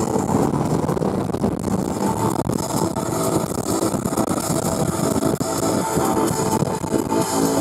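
Music playing over the steady noise of a moving vehicle.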